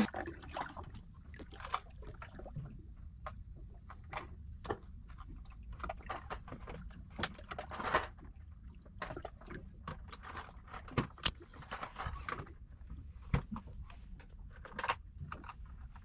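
Low, steady rumble of wind and water against a small boat, with many irregular light clicks and knocks from handling a fishing rod and conventional reel.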